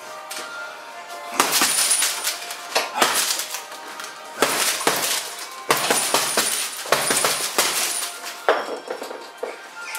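Boxing-glove punches landing on a heavy bag made of stacked tyres wrapped in plastic film: about a dozen irregular, sharp slapping hits starting about a second and a half in, over background music.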